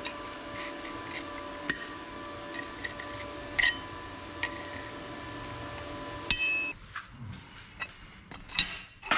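Steel pliers clicking and scraping on plasma-cut steel plates as the cut edges are cleaned of dross, with a few sharp metal clinks, one ringing briefly about six seconds in. A steady hum sits under it and drops away about two-thirds through.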